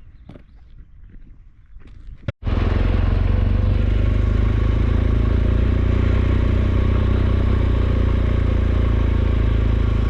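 A few soft footsteps and small knocks, then an abrupt cut about two seconds in to a motorcycle engine running steadily under way, loud, with a deep steady drone and wind-and-road noise over it.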